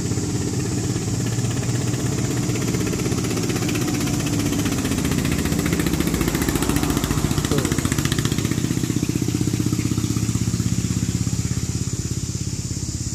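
Single-cylinder diesel engine of a Thai e-taen farm truck chugging with a fast, even beat as it drives past, loudest about halfway through.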